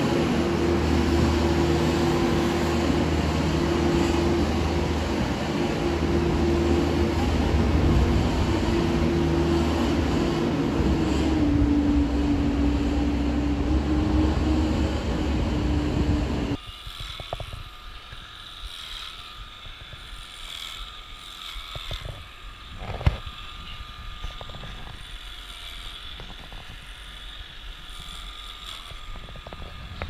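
A compact farm loader's engine runs steadily with a whine that drops slightly in pitch partway through. Just past halfway it gives way abruptly to a much quieter, steady, high electric hum of cattle clippers trimming a cow's tail hair, with one sharp click.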